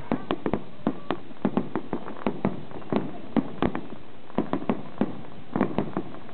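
Aerial fireworks bursting and crackling, a quick irregular run of sharp pops, several a second.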